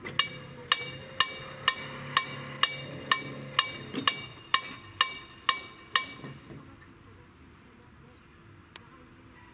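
Level-crossing warning bell (KLD-4013 acoustic signal) ringing with evenly spaced metallic strikes, about two a second, each ringing on briefly. It stops about six seconds in.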